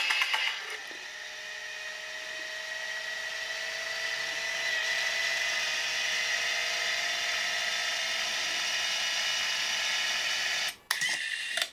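Motor-driven antenna tuner of an EM-25 military radio turning its tuning elements to a new frequency: a steady small-motor whine whose pitch creeps slowly upward for about ten seconds. It stops abruptly near the end, followed by a couple of sharp clicks.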